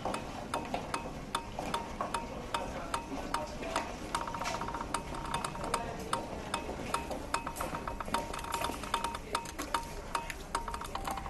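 Rhythmic soundtrack music built from steady sharp ticks, about three a second, and short beeps at one steady pitch, with a quick rattle of clicks about four seconds in.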